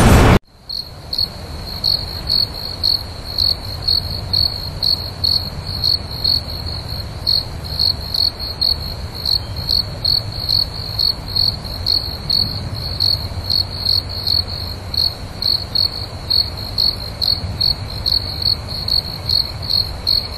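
A cricket chirping in a steady rhythm, about two short high chirps a second, over a low background rumble. It cuts off suddenly at the very end.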